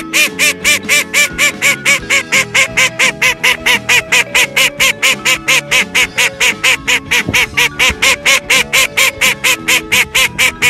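Background music with a rhythmic rubber-duck squeak, about four squeaks a second, over held notes.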